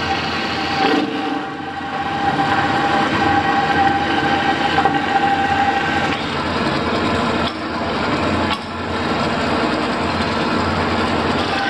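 Vertical bandsaw running and cutting a hand-fed workpiece: a steady tone over dense cutting noise, with a couple of sharp clicks about two-thirds of the way through.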